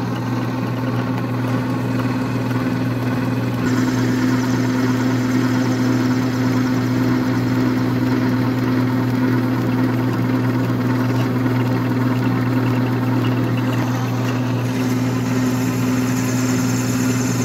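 Old metal lathe running with a steady motor hum while a high-speed steel tool takes a roughing cut on a bearing-bronze bar; the cutting hiss gets brighter about four seconds in. The cut runs smoothly without chatter, throwing long chips: the sign of a right speed and feed.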